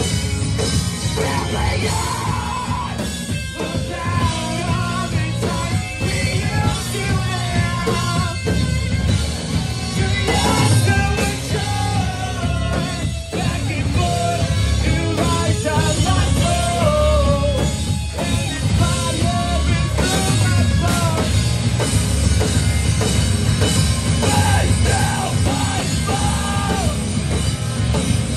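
A rock band playing live: electric guitars, bass and drum kit, with a singer's vocals over them.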